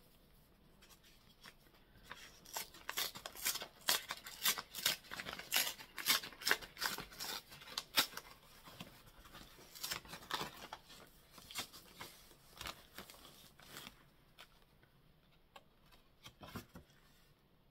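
Paper greeting-card envelope being torn open and the card pulled out: a run of quick, irregular paper crackles and rips that thins out about fourteen seconds in, with a few more near the end.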